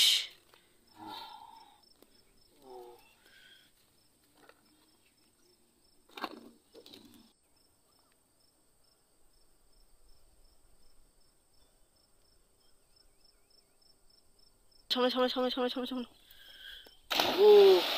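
Mostly quiet, with a few faint short sounds early and near silence in the middle; about three seconds before the end, loud men's voices break in, calling out.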